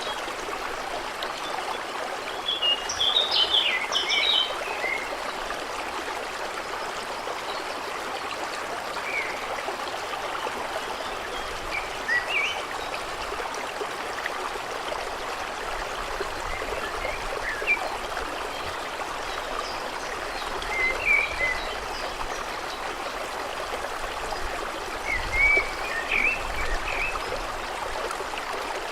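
Small stream running steadily over stones, with birds chirping in short bursts a few times, loudest about three seconds in and again near the end.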